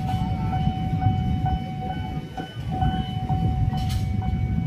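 Electric commuter train standing held at a signal by a level crossing: a steady low rumble with a constant high-pitched hum running through it.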